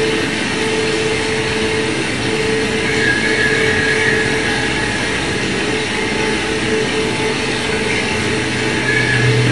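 Loud, steady, dense drone like the rumble of a train or machinery, with a few held tones over it and a brighter high tone swelling about three seconds in. It is the sound score playing under a butoh dance.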